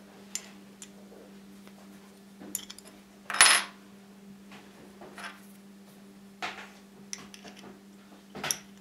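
Small metal clicks and clinks as an Allen wrench turns the screw of a wheel puller drawing a drive wheel off an American Flyer steam locomotive's axle; a handful of separate clicks, the loudest a brief scraping clink about three and a half seconds in. A steady low hum runs underneath.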